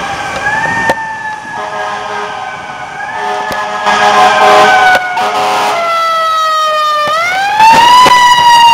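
Fire engine siren wailing: its pitch sinks slowly, then sweeps sharply up about seven seconds in and grows loud near the end.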